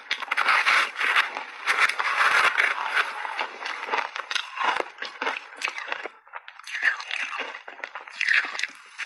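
Close-miked crunching and chewing of frozen shaved ice coated in milk powder: dense crackly crunches in clumps. There is a short lull about six seconds in, then more crunching.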